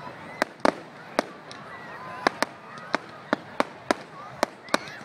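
Aerial fireworks exploding: an irregular string of sharp bangs and cracks, about a dozen in five seconds.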